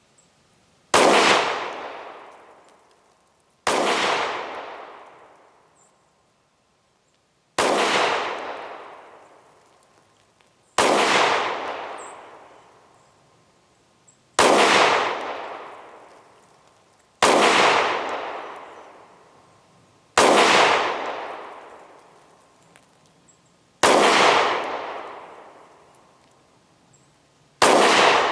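Kel-Tec PR-57 pistol in 5.7×28mm firing nine single shots, roughly three seconds apart, with FN green-tip ammunition feeding from the magazine. Each sharp crack is followed by a long echo dying away over about two seconds.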